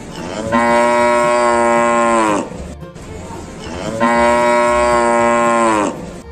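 A cow mooing twice, each moo a long call of about two seconds that drops in pitch at the end.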